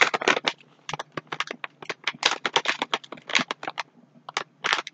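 Plastic donut bag crinkling and rustling in quick, irregular crackles as it is handled and folded shut.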